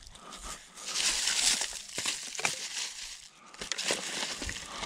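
Dry dead sticks snapping and clattering and dry leaf litter crunching as kindling for a fire is gathered by hand. A louder rustling burst comes about a second in, followed by several sharp snaps.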